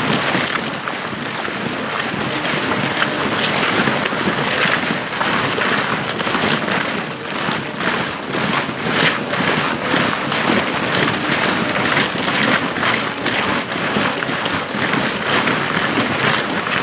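Boots of a large column of marching soldiers crunching on packed snow: a dense, continuous stream of overlapping footsteps.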